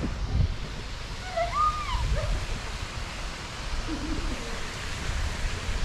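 Wind noise on a phone's microphone: a low, uneven rumble over a steady outdoor hiss. A couple of faint short calls sound through it, one between one and two seconds in and another about four seconds in.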